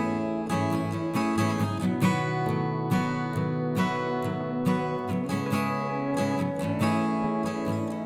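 Background music: acoustic guitar plucking and strumming chords at an even pace.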